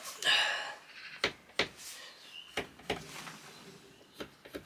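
Pencil scratching on plywood as short marks are drawn, followed by about half a dozen light taps and knocks against the board.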